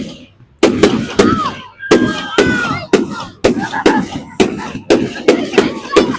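Fireworks display: a rapid series of sharp bangs with echoes, starting about half a second in and coming two or three a second.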